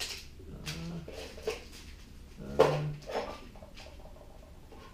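Small metal screws and nuts clinking together and a plastic parts bag rustling as kit hardware is sorted by hand, in a handful of separate clicks and rustles, the loudest about two and a half seconds in.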